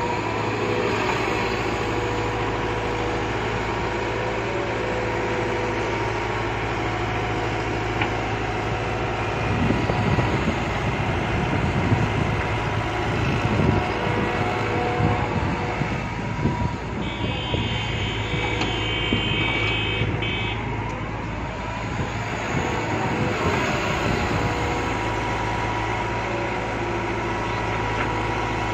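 Sumitomo crawler excavator's diesel engine running steadily as the boom swings and the bucket works the sand. Rough crunching and scraping of the bucket in sand through the middle, with a high whine for a few seconds midway.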